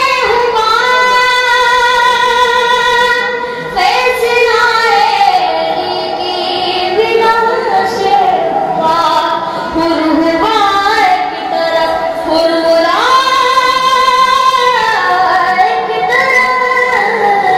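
A young boy singing a manqabat, an Urdu devotional poem, solo into microphones in a high, clear voice, holding long ornamented notes that slide between phrases.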